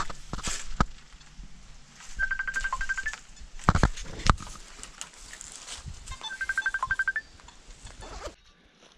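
Smartphone ringing for an incoming video call: two quick runs of short high beeps about four seconds apart. A couple of sharp knocks fall between the two runs.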